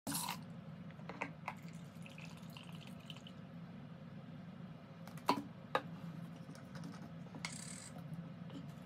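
Liquid poured from a plastic bottle into a small measuring cup, with several light clicks and knocks of bottles and the cup being handled on a table, over a low steady hum. A short hiss comes near the end.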